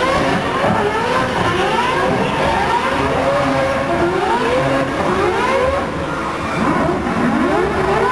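Mazda RX-7 drift car's rotary engine revving hard during donuts with its rear tyres spinning and smoking. The pitch climbs in repeated surges, roughly once a second, with a short dip about six seconds in.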